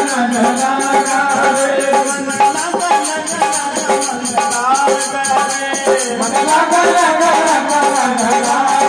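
Devotional bhajan accompaniment: harmonium playing the melody over dholak drumming, with a fast, steady rattling percussion in the high range.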